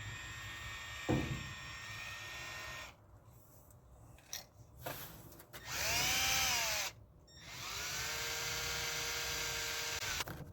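A handheld electric power tool running in three bursts. Its motor whine bends up and down in pitch in the loudest burst, about halfway through, and holds steady in the last. A sharp knock comes about a second in.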